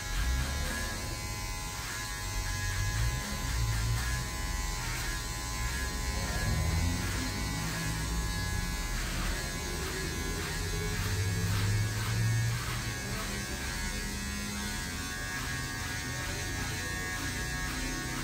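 Electric hair clippers buzzing steadily while shaving a head.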